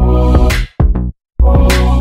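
Background music with a steady beat, which cuts out for about half a second near the middle and then comes back in.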